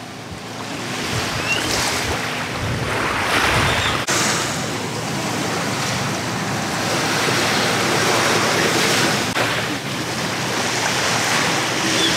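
Steady rushing of wind and small waves on the beach, with some low wind rumble on the microphone in the first few seconds.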